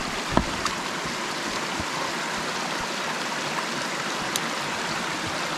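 Shallow mountain creek running over rocks, a steady rush of water, with a few brief sharp clicks about half a second in and again past four seconds.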